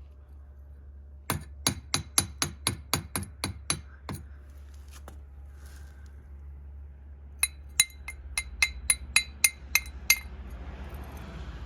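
Two runs of sharp metallic strikes with a ringing clink, about four a second, ten or so in each run with a pause of a few seconds between them.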